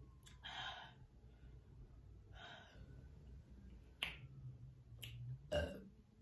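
A person's quiet breaths, two soft exhalations in the first few seconds, then a few sharp clicks in the second half.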